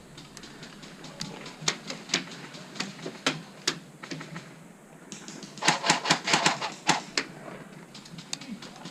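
Airsoft guns firing: scattered sharp single shots, then a rapid burst of clicks lasting about a second and a half a little after halfway through.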